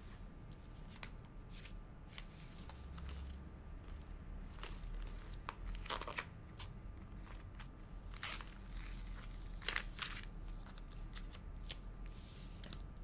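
Stickers being peeled from their sheet and pressed onto an iPad case: scattered light rustles, crinkles and small taps. There is a louder crinkle of the sticker sheet about six seconds in and more between about eight and ten seconds.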